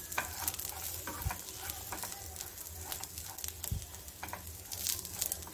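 Chopped nuts and dried dates sizzling softly in ghee in a nonstick frying pan, stirred with a metal spatula that gives scattered scraping clicks and a couple of soft knocks. They are being lightly fried, just enough to crisp them, not browned.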